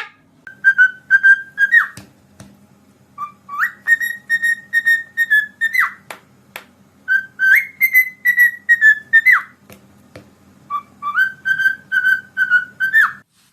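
A parrot whistling a tune: four phrases of quick repeated notes on one pitch, each ending with a short slide.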